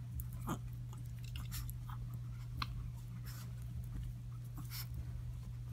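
Small dog chewing and mouthing, making irregular wet clicks and smacks against a blanket, over a steady low hum.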